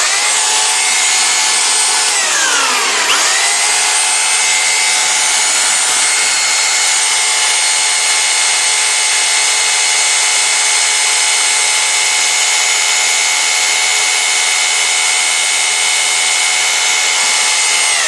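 Cordless drill running at high speed, spinning an old washing machine motor that is wired up as a generator: a steady high whine. About two seconds in, the speed drops and then climbs straight back up.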